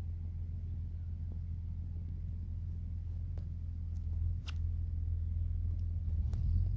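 A steady low rumble with a few faint clicks, the clearest about four and a half seconds in.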